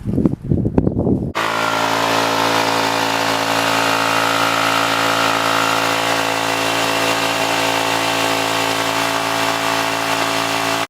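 A few knocks and handling noises, then a chainsaw running at a steady speed, starting abruptly about a second in and cutting off sharply at the end.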